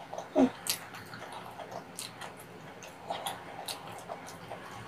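A person chewing soft steamed kabocha squash with melted cheese, making scattered short mouth clicks and smacks. One louder short sound falls in pitch about half a second in.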